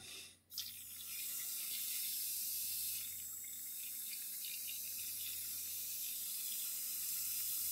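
Airbrush hissing steadily as it sprays Alclad II polished aluminum onto test paper, starting about half a second in. The air cap is leaking, with bubbles coming out of it.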